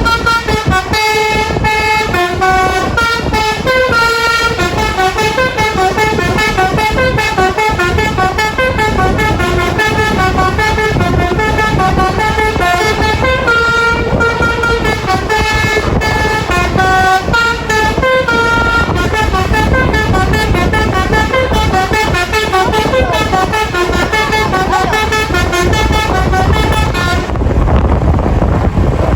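Bus basuri (telolet), a multi-tone musical air horn, playing a long, quick melody of stepping horn notes. It cuts off near the end, leaving a low rumble.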